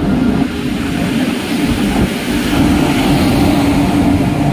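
Indian Railways passenger coaches rolling past close by: a loud, steady rumble of wheels on rails with a low hum running under it.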